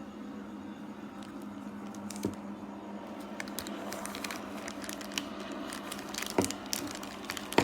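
Portable USB turbine mini washer running in a tub of water and clothes: a steady motor hum with wet squishing and crackling from the agitated water. There are a few sharp knocks, the loudest near the end.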